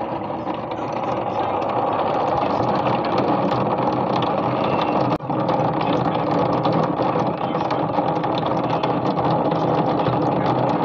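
Steady heavy rain sound effect: a dense, even hiss of falling rain that starts abruptly, with a brief dropout about five seconds in.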